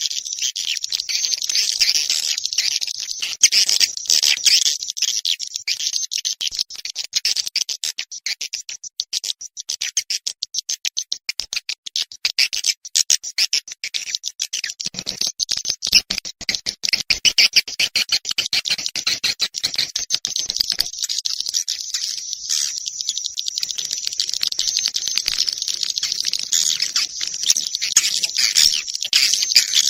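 Swiftlet calls: a dense, unbroken high twittering of many rapid chirps and clicks. It is a recorded swiftlet lure sound, played in swiftlet houses to draw the birds in.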